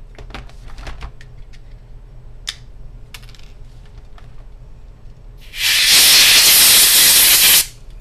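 A can of compressed air (gas duster) sprays one loud, steady hiss lasting about two seconds, starting about five and a half seconds in, blowing dust out of a laptop's cooling vents. Before it come a few light clicks and taps.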